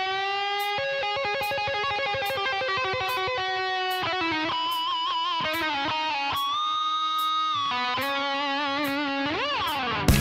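Music led by an electric guitar: long held notes over a light tick about every two-thirds of a second, with a note bent up and back down near the end. Just before the end a louder section cuts in.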